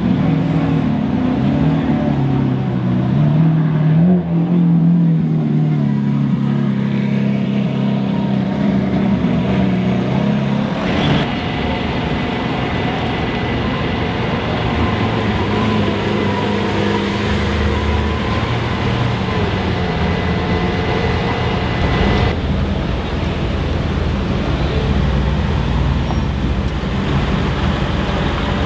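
Supercar engines, among them a Lamborghini Aventador's V12, running at low speed as cars roll past one after another in street traffic; an engine note rises and falls in the first few seconds. A steady high tone sounds over it from about eleven seconds in to about twenty-two seconds.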